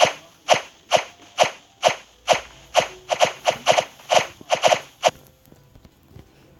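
A run of about fifteen short, sharp clicks or knocks, evenly spaced at about two a second at first, then quicker and uneven with some close pairs, stopping about five seconds in.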